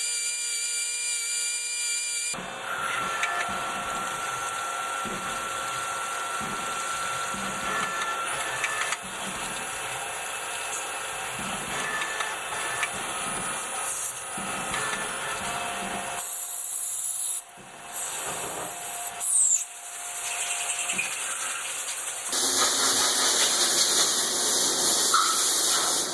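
A power tool running with a steady high whine, cutting metal gear rod stock for small gears; the sound changes abruptly a few times, and a louder hiss takes over near the end.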